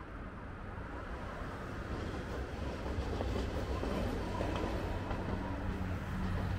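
Tosaden 600-series streetcar running past on street tracks, its rolling and rumbling growing louder as it nears, with a few faint clicks as it passes.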